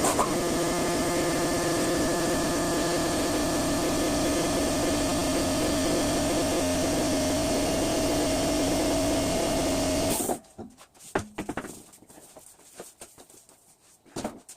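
Electric air compressor motor running steadily, its pitch sinking slightly as the load builds, then shutting off abruptly about ten seconds in. A few faint clicks and knocks follow.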